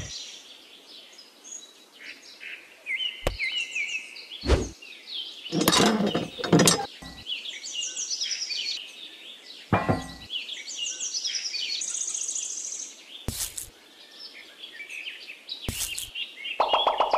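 Birds chirping and tweeting throughout, with several sharp knocks and taps as small pieces of a miniature model are handled and set in place.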